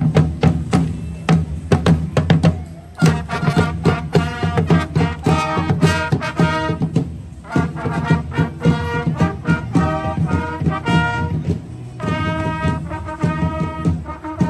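A brass band with drums playing a lively tune. About the first three seconds are drum beats alone, then the brass comes in over the drums and plays phrases of held notes.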